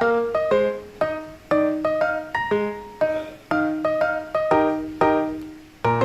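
Background piano music: single struck notes and chords at a moderate pace, each ringing and fading.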